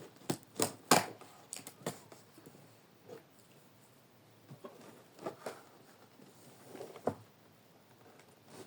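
Handling a cardboard box and its packing while opening it: a quick run of sharp clicks and scrapes in the first two seconds, then a few scattered taps and rustles.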